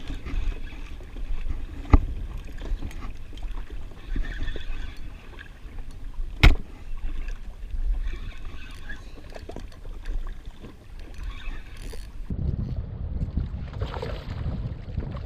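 Wind buffeting the microphone and water lapping against a drifting jet ski's hull, with two sharp knocks about two seconds and six and a half seconds in. The wind rumble grows stronger near the end.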